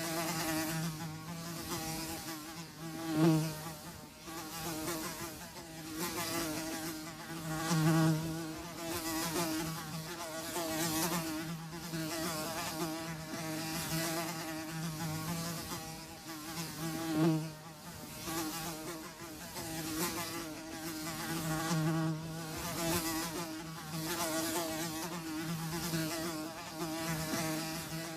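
Flies buzzing, a steady drone that swells and fades as they fly nearer and farther, with louder swells about three, eight and seventeen seconds in.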